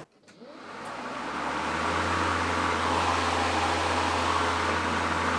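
Ryobi 40-volt brushless 20-inch battery lawnmower switched on with a click, its motor and blade spinning up over about a second and a half and then running at a steady hum.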